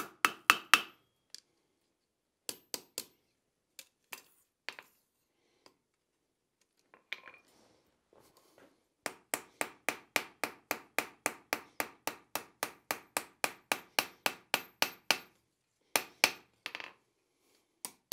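Blacksmith's hand hammer striking a red-hot steel hinge blank on an anvil, curling the end over into the hinge eye. A few scattered blows come first, then a steady run of about four blows a second for some six seconds, each blow with a short high ring.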